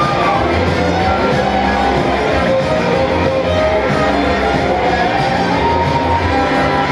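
Live garage-rock band playing loudly, led by electric guitar with gliding, bent notes over strummed chords. A guitar string broke on the first note, so the guitar sounds off its usual tuning.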